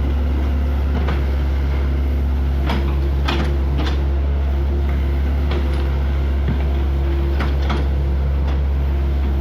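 Excavator running steadily with a constant low hum, with several short clanks and scrapes as it works the muddy road surface.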